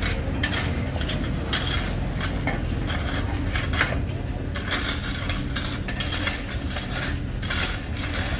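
Heavy road-construction machinery running with a steady low engine drone, over irregular metallic clinks and scrapes.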